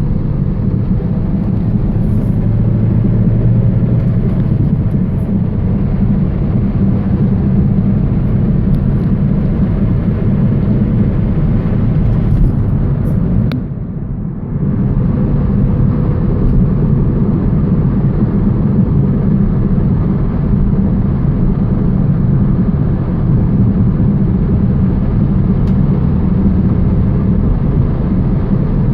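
2000 Toyota Celica GT-S on the move, a steady low drone that the owner suspects is a bad wheel bearing. About halfway through there is a click, and the noise dips for about a second.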